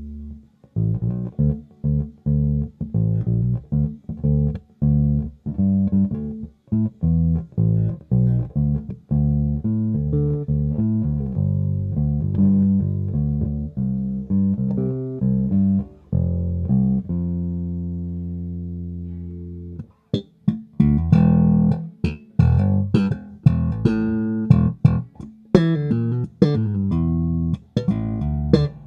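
Momose MJ-series electric bass (Jazz Bass type) played solo as a sound sample: a line of plucked notes, then a note held for a few seconds. About two-thirds of the way through, the playing turns brighter and more percussive, with sharp attacks.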